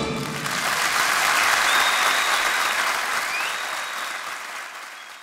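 Audience applauding as the song ends, the clapping fading away toward the end.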